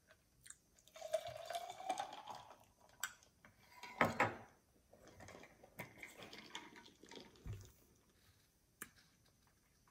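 Drink sipped through a plastic straw from a glass jar: a slurp that rises in pitch. The glass jar is then set down on a wooden board with a clink about four seconds in, followed by faint chewing.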